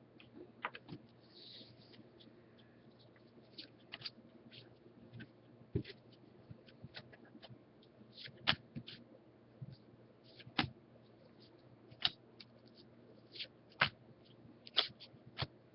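Trading cards being handled and flipped through by hand: a string of light, irregular clicks and flicks as cards slide off the stack.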